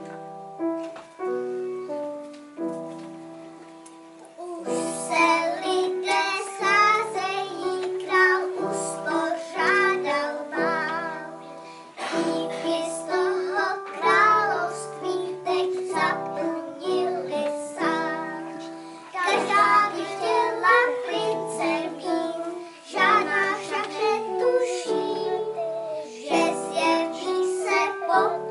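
A piano plays a short introduction, then a group of young children sings a song with the piano accompanying them, starting about five seconds in.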